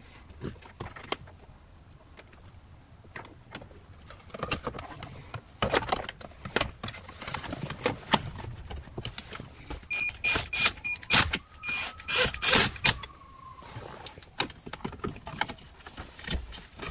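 Clicks, taps and rattles of wiring and plastic console trim being handled, growing busier partway through. About ten seconds in comes a high, pulsing squeak lasting around three seconds.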